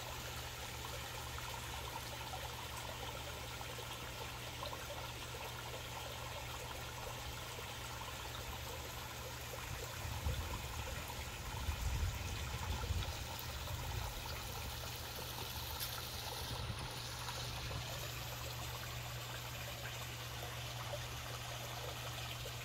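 Koi pond waterfall trickling steadily into the pond. A low rumble comes in bursts about ten seconds in and lasts a few seconds.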